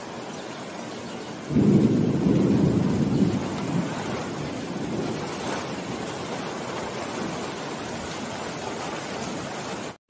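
Steady rain falling on the leaves of a forest canopy. About a second and a half in, a clap of thunder breaks in loud and low, then rolls away over the next few seconds.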